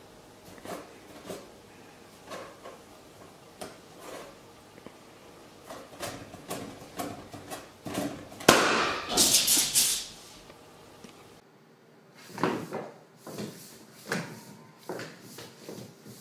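Scattered thumps and knocks of a cat leaping and landing on a bed while batting at a balloon, with a loud rustling scrape a little past halfway. After a cut, lighter taps and thumps of a kitten running across a wooden floor.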